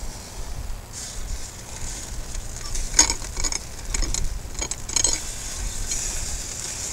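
Sizzling from the open charcoal Pit Barrel Cooker, with a few light metal clicks of the rib hooks and rebar against the grate and barrel between about three and five seconds in.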